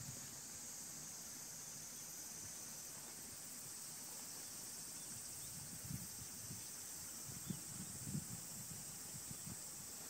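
Steady high-pitched insect chorus, with a few soft low thumps about six, seven and a half and eight seconds in.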